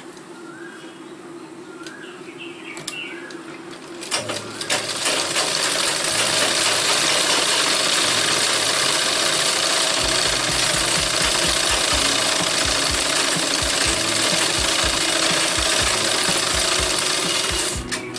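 Straight-stitch sewing machine stitching cloth at speed. It starts about four seconds in and runs as a steady, fast mechanical rattle, then stops just before the end.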